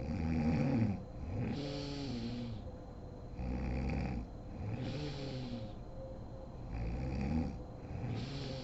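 A woman snoring in her sleep. There is a snore and a hissing breath about every three seconds, so roughly three breath cycles.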